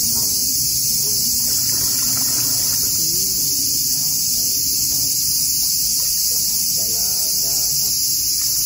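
Loud summer chorus of cicadas: a steady, high, unbroken buzz with no pauses.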